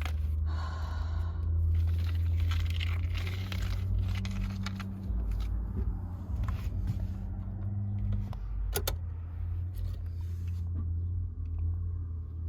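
Car keys jangling and clicking over a steady low rumble, with a few sharp clicks, one about nine seconds in.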